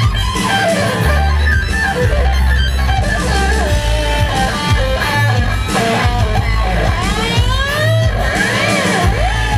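Electric guitar lead played live through an amplifier: fast runs of quick notes, turning in the last few seconds into swooping pitch glides that rise and fall, over a low bass.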